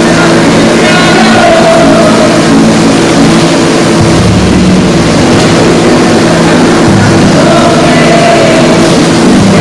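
Karaoke backing music playing loudly over an outdoor PA system: held chords, with a deep bass that comes in about four seconds in and changes again about seven seconds in.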